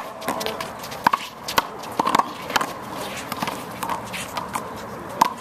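Handball rally: the small rubber ball smacks sharply off bare hands, the concrete wall and floor several times, about half a second apart over the first few seconds, with one more smack near the end.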